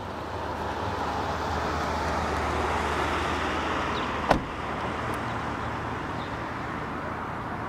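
Jet engines of a Boeing 737 airliner on final approach with its gear down, a steady rushing roar that swells as it nears overhead. A single sharp click about halfway through.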